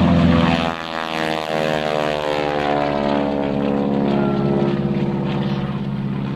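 North American T-6 Texan's 600-horsepower radial engine and propeller at high power as the aircraft passes by. The engine note drops steadily in pitch from about a second in.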